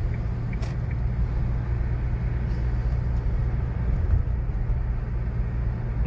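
Steady low rumble of a car's engine and road noise, heard from inside the cabin while driving.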